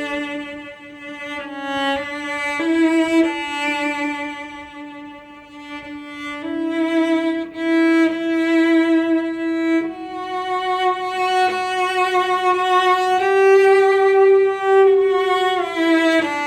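A cello played with the bow: a slow melody of long sustained notes with vibrato, moving between notes every few seconds.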